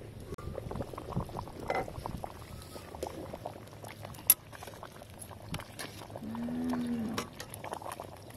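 A metal ladle stirring a big steel pot of boiling soup: liquid sloshing and bubbling, with scrapes and clinks of the ladle against the pot and one sharp clink about four seconds in. Late on, a low animal call about a second long sounds over the stirring.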